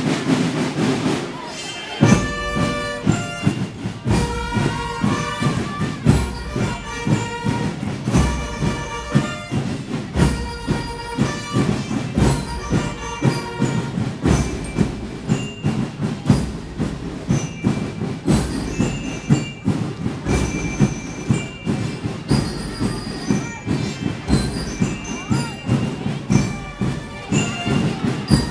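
Marching band playing a march live: bass drums keep a steady beat under brass and bell lyres carrying the tune. The band comes in abruptly about two seconds in.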